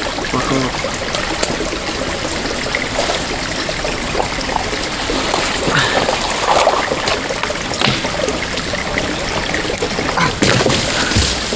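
Creek water running steadily, with scattered splashes and knocks; the strongest comes about ten and a half seconds in.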